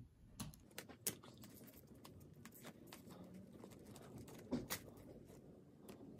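Faint handling sounds of plastic brush pens being picked up off a table and slid into the elastic loops of a fabric pencil case, with light clicks and taps of pen barrels on the tabletop, the sharpest about a second in and twice around the four-and-a-half-second mark.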